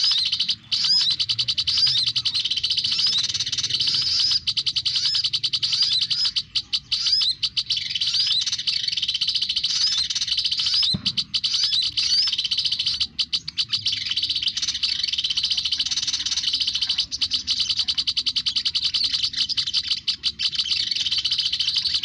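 Sunbird-call lure recording played through a speaker to draw olive-backed sunbirds to a trap: a dense, rapid, high chittering that goes on almost without a break. A short low knock comes about eleven seconds in.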